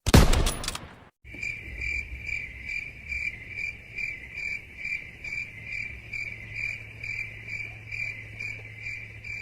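Crickets chirping, the stock 'awkward silence' meme sound effect: an even chirp repeating about twice a second. It starts about a second in, after a short loud burst that dies away.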